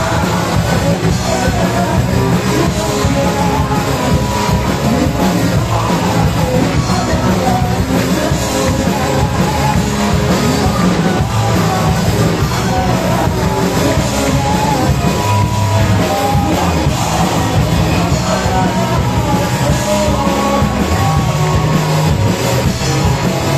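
Rock band playing live, loud and steady throughout.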